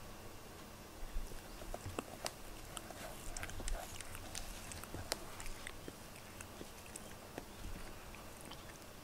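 Domestic cat grooming itself close to the microphone: irregular wet licking and small tongue clicks on its fur, thinning out over the second half.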